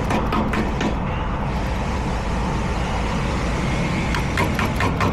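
Sharp knocks of a tool striking a furnace gas valve, a few in the first second and a few more near the end. The valve is being tapped to make it open, and is suspected to be bad. A steady low mechanical rumble runs underneath.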